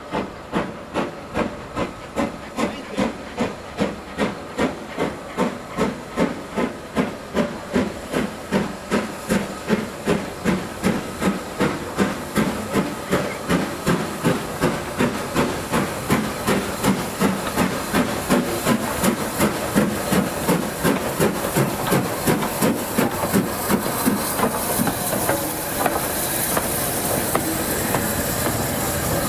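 LNER Thompson B1 class 4-6-0 steam locomotive 1264 getting a train under way, its chimney exhaust beating sharply and evenly. The beats quicken from about two to about three a second as it gathers speed. Near the end the engine draws close, and the noise of the train running past fills in between the beats.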